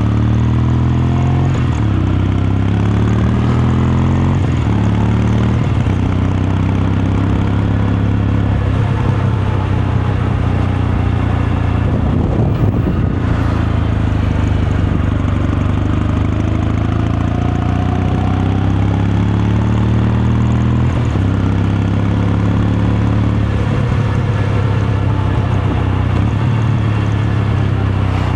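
Kawasaki Meguro K3's air-cooled 773 cc parallel-twin engine and exhaust under way, its pitch climbing and dropping in steps through gear changes in the first several seconds and again around twenty seconds in, with a steadier cruise in between.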